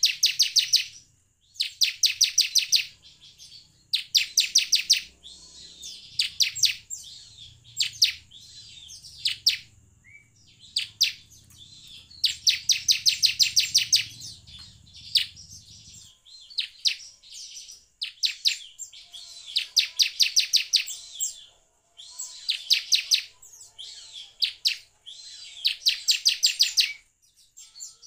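Bar-winged prinia (ciblek) singing: repeated bursts of rapid, high-pitched notes, each burst about a second long, coming every two to three seconds.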